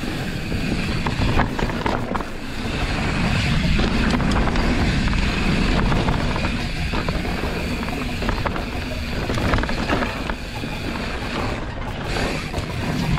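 Mountain bike ridden fast down a trail: a rushing, buffeting noise with tyre noise and frequent small rattles and knocks as the bike goes over bumps.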